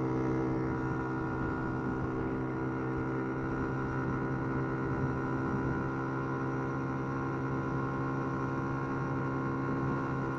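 A steady hum with a stack of overtones that holds one pitch throughout, over a low rumble.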